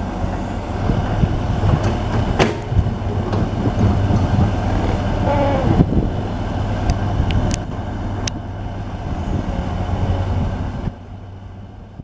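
Komatsu D65P crawler bulldozer's diesel engine running with a steady low drone, while its steel tracks clank and squeal as it crawls over rocky ground. The sound drops away sharply about a second before the end.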